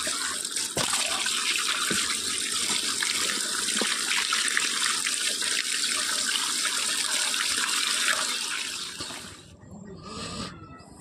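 Water gushing steadily out of an open half-pipe chute and splashing into a plastic mesh basket, then dying away about nine seconds in.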